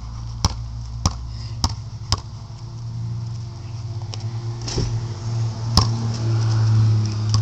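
A basketball bouncing on hard ground: four bounces about half a second apart, then two more a second apart after a pause. A steady low hum runs underneath and grows louder near the end.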